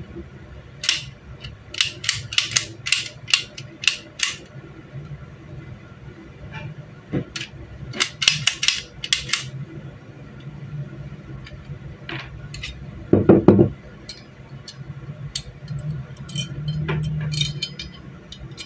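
Small metal tools and parts clinking and tapping on a workbench, in quick runs of sharp clicks, with one duller knock about two-thirds of the way in and a steady low hum underneath.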